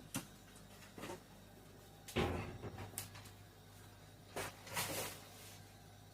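Several knocks and clatters as chicken in an oven is handled and turned, the heaviest a thump about two seconds in, over a faint steady low hum.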